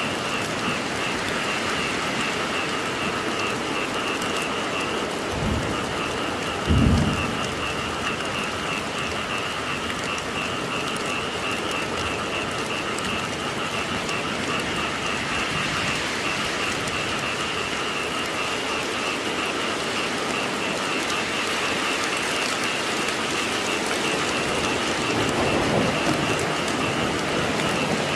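Steady heavy rain falling, with a short low thump of thunder about seven seconds in and a longer rumble of thunder near the end.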